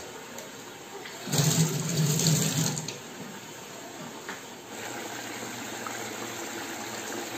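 Fish curry bubbling in a kadai over a gas burner, with a steady hiss. About a second in, a loud rustle lasts a second and a half.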